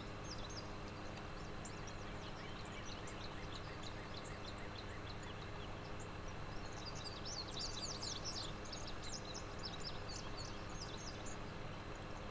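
Small birds chirping and twittering in quick short calls over a steady low background hum, busiest about two-thirds of the way through.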